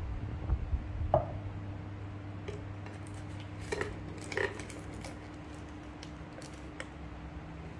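Glass bowl set down on a wooden cutting board: a few dull knocks in the first second or so, then scattered light clicks and taps, over a steady low hum.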